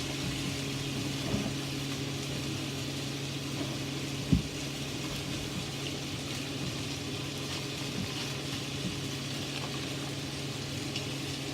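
Chicken strips, onions and scallions frying in an oiled pan, a steady sizzle, over a low steady hum. A single knock sounds about four seconds in.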